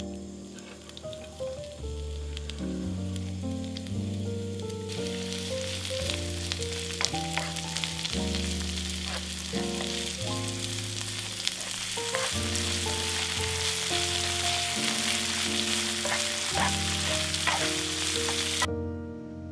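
Food frying in oil in a pan, a steady crackling sizzle that starts about five seconds in and cuts off suddenly near the end. Soft background music with a bass line plays throughout.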